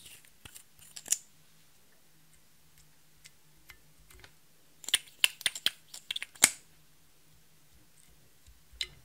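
Sharp clicks and taps of cosmetic packaging and an applicator handled over a glass dish: a few around a second in, a quick run of them from about five to six and a half seconds, and one more near the end.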